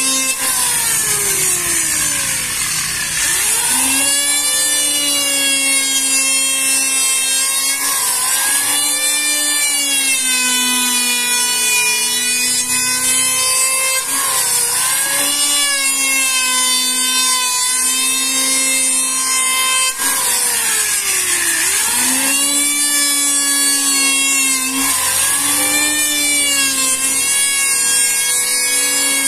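Handheld electric wood planer running and cutting along a wide board, its high motor whine sagging in pitch under load as the blades bite and recovering between strokes. Twice the whine drops away and winds back up.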